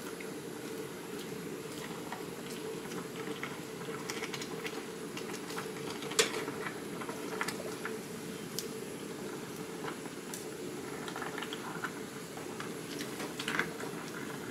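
Water boiling steadily in a small pot as spinach is blanched, a continuous bubbling with small scattered ticks. A single sharp click about six seconds in.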